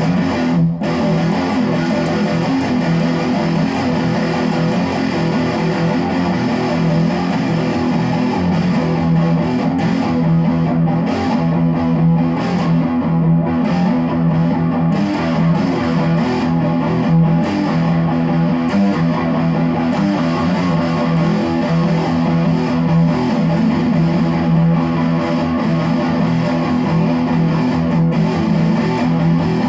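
Electric guitar playing continuously over a steady, held low note.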